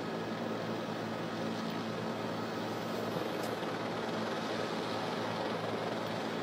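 Steady cabin noise of a news helicopter: a constant rushing hum with a few low held engine and rotor tones.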